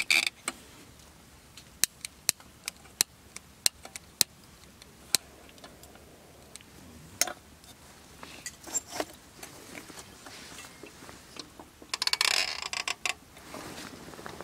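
An oil lantern being lit: a series of sharp single clicks, about half a second to a second apart, with small handling sounds. About twelve seconds in comes a second or so of hissing rustle.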